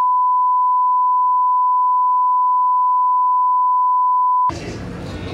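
Steady 1 kHz line-up tone, the test tone that goes with colour bars: one pure, unchanging beep. It cuts off abruptly about four and a half seconds in, giving way to busy background noise with voices.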